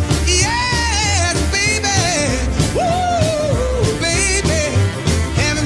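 Background song: a singer's voice carrying a wavering melody over a steady beat and a pulsing bass line.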